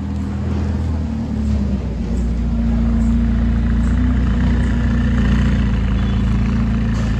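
McLaren sports car's twin-turbo V8 running at low revs as the car pulls away slowly, growing louder about two seconds in and then holding steady.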